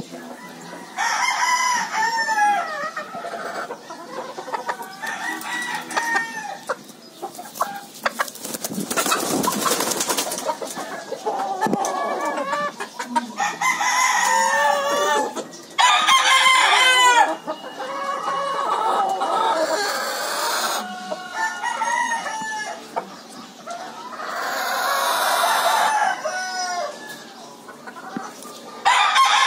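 Yellow-legged hatch × sweater gamefowl calling over and over: clucks and cackles mixed with rooster crowing, some calls short and some drawn out for a second or more. A brief rustling noise comes about nine seconds in.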